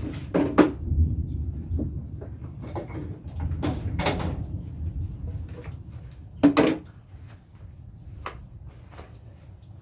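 Metal chain-link gate rattling and clanking as it is swung shut, followed by a few more knocks and clatters of handling. The loudest comes about six and a half seconds in, over a steady low rumble.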